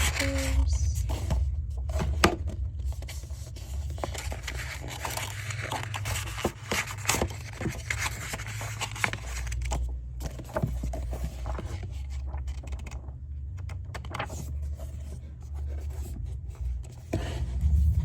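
Paper and packaging being handled: irregular scraping and rustling with scattered clicks as a planner is turned over and opened.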